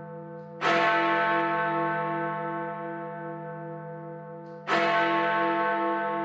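Large bell tolling: two strokes about four seconds apart, each ringing on and slowly dying away, with a slow pulsing in its hum.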